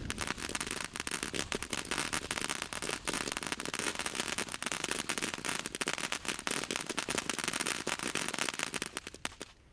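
TNT Night Treasure ground firework spraying sparks with a dense, irregular crackle of many small pops, thinning out and dying away near the end.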